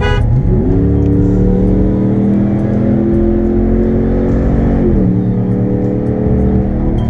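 Straight-piped Ram pickup engine under hard acceleration, heard from inside the cab. The revs climb sharply about half a second in, hold high and steady, then drop about five seconds in as the transmission shifts up.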